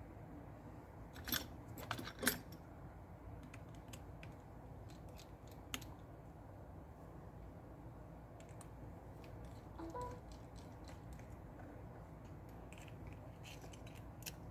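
Faint, light clicks and taps of small repair tools and tiny screws being handled on a phone's metal internals. A few sharper clicks come in the first couple of seconds, then only scattered soft ticks.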